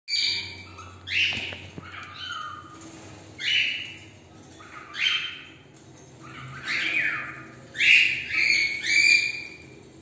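Cockatiels calling: about nine loud chirping calls, one to two seconds apart, coming closer together and loudest near the end.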